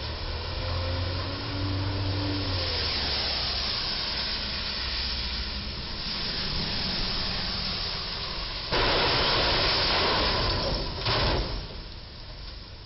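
Traffic on a rain-soaked road: steady hiss of tyres on wet pavement, with a low vehicle engine hum in the first couple of seconds. About nine seconds in a sudden loud hiss starts and lasts about two seconds, followed by a second short burst just after.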